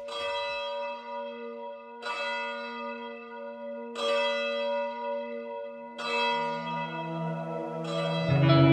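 A church bell tolling, one stroke every two seconds, five strokes in all, each ringing on and fading before the next. Music comes back in just before the end.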